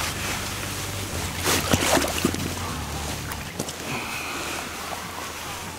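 Rustling and handling noise as a large carp is lifted off an unhooking mat, with a few sharp knocks and scrapes about one and a half to two seconds in.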